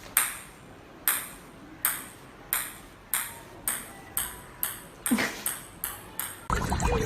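A bright ping struck about a dozen times, each ringing out briefly, the strikes coming faster and faster from about a second apart to about three a second. About six and a half seconds in, the pings give way to a louder, busier sound.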